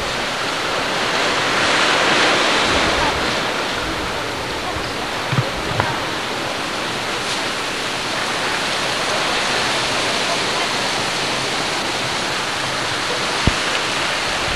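Steady rushing noise of wind and breaking surf, swelling slightly about two seconds in. A few brief thumps come around the middle and one near the end.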